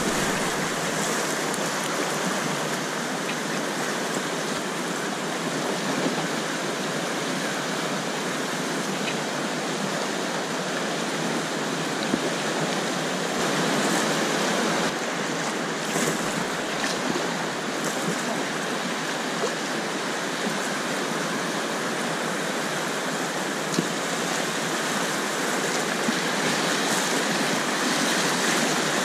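Whitewater rapids rushing steadily around a kayak in the river, with a few faint knocks.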